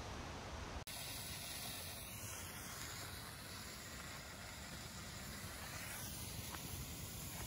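Volt Flamethrower handheld fountain firework burning with a steady hiss as it sprays flame and sparks.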